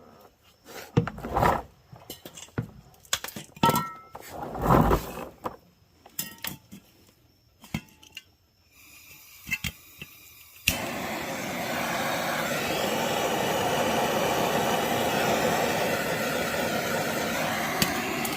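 Scattered handling clicks and knocks, then about ten seconds in a heat gun switches on suddenly and runs with a steady blowing hiss, shrinking heat-shrink tubing over a freshly crimped battery cable end.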